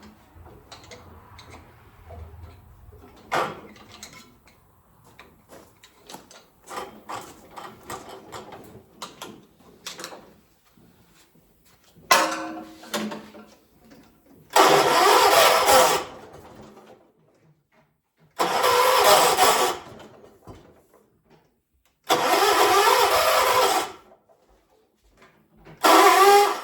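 1976 John Deere 300 tractor's engine being cranked on the starter in five separate tries of one to two seconds each, with quiet between them. The engine does not catch and run: a hard start. Faint clicks and handling noises come before the first try.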